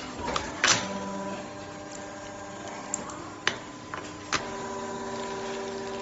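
Vertical injection molding machine running with a steady hum, broken by a few sharp clicks and clatters of plastic as the molded RJ45 cable plugs are handled, the loudest about a second in.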